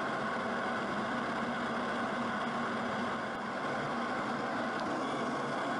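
Steady drone of jet aircraft in flight, engine and rushing-air noise with a faint low hum, holding even with no change in pitch.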